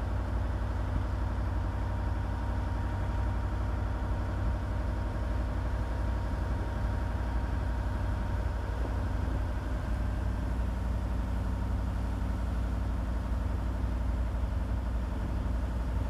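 Boat engine running steadily under way, a constant low drone, with water rushing past the hull.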